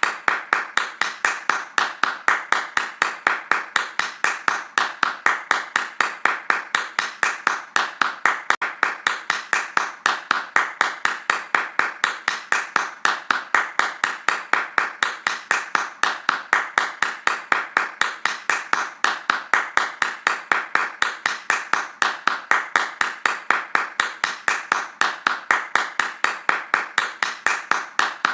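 Hands clapping fast in a steady, even rhythm, about four to five claps a second.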